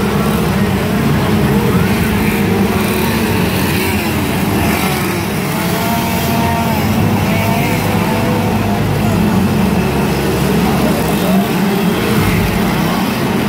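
Chainsaw engines running steadily, with crowd voices over them.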